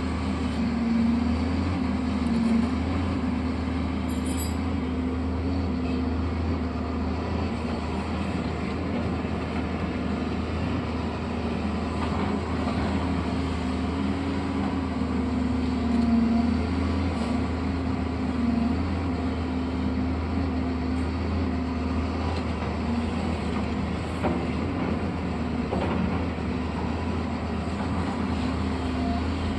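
Heavy construction machine engine running steadily: a low, continuous drone that wavers slightly in pitch.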